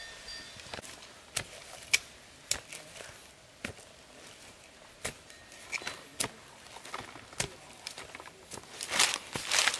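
A short metal blade striking and scraping into damp clay soil, loosening clods: irregular sharp strikes about every half second to a second, with a quicker, louder run of scraping near the end.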